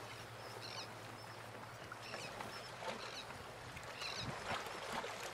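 Sailcloth of a dinghy mainsail rustling and crinkling as it is unrolled and spread out, over a steady outdoor hiss, with a few short high bird chirps.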